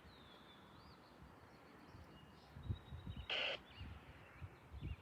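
Faint birds chirping and whistling, with a short burst of scanner-radio static a little past halfway and a few low thumps near it.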